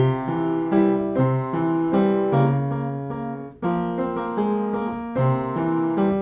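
Background piano music: a light keyboard tune of struck notes and chords, a new note about every half second, briefly dropping away about three and a half seconds in.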